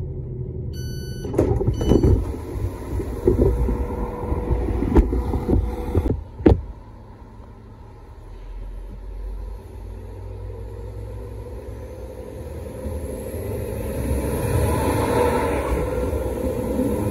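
Alstom Lint 41 diesel railcar: the door-open button is pressed and a beep sounds about a second in, followed by clunks and knocks of the door opening for several seconds. After a break, the railcar pulls away past the platform, its engine and running noise growing louder near the end.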